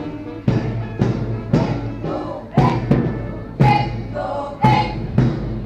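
March music with a steady drum beat, about two beats a second with every other beat stronger, over pitched melodic tones.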